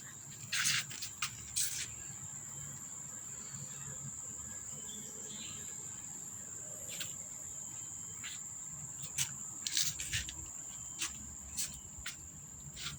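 Crickets or similar insects trilling on one steady high pitch, with a dozen short sharp clicks and ticks scattered through it.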